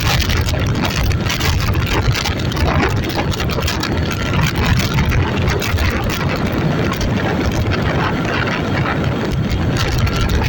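A vehicle engine running steadily, with a constant loud rushing noise.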